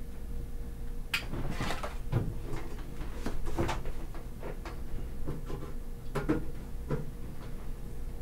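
Scattered light knocks and clicks of objects being handled and set down, over a steady low hum.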